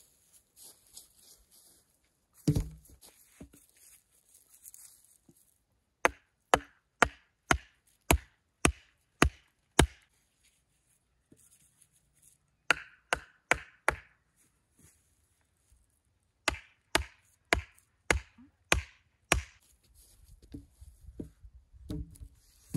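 A birch log thuds onto the ground about two and a half seconds in. Then come three runs of sharp chopping strikes into the birch wood, about two a second, with short pauses between the runs.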